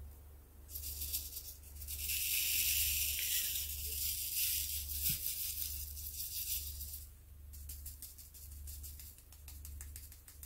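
Many small resin diamond-painting drills rattling as they are shaken in a plastic tray, a dense maraca-like rattle for about six seconds, then a few scattered clicks.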